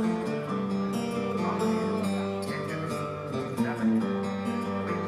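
Heavy metal band playing live: electric guitars holding sustained chords that change every second or so over a steady beat.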